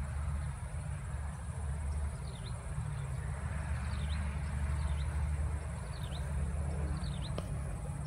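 Wind rumbling on the phone's microphone and grass rustling as the filmer walks through tall grass, with a bird giving short high chirps about five times from about two seconds in.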